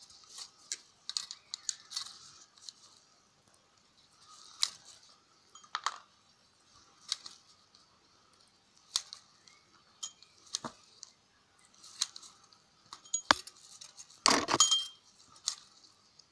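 Thin steel casing of an AA alkaline battery being peeled off by hand: scattered metallic clicks and crinkling as the can is bent and torn, with a longer, louder scrape near the end.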